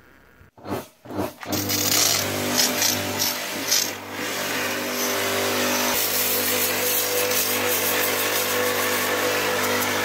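Pressure washer running and spraying water into a stone basin: a steady motor hum under the hiss of the spray, starting with a few short bursts before running continuously. It is a weak unit, high-pressure in name only.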